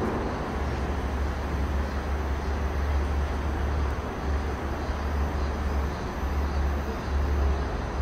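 Steady outdoor background noise: a constant low rumble under an even hiss, with no distinct events.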